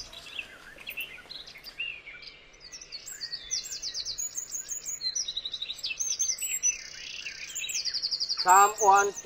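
Several birds chirping and trilling, with quick runs of high repeated notes and overlapping calls. A person's voice starts near the end and is louder than the birds.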